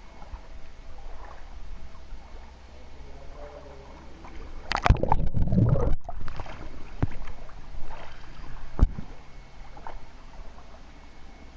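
Water splashing and sloshing close to the microphone as someone moves through shallow cave water, with a loud burst of splashing about five seconds in and a single sharp knock near nine seconds.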